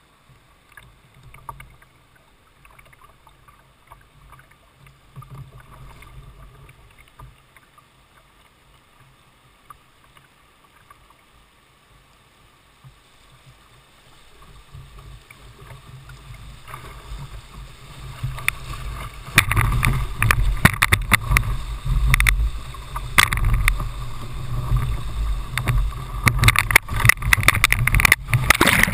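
Whitewater rapid rushing and splashing over the bow of a Jackson Coosa kayak as it runs the drop. The sound is faint at first, builds from about fifteen seconds in, and is loud with dense splashes from about nineteen seconds on.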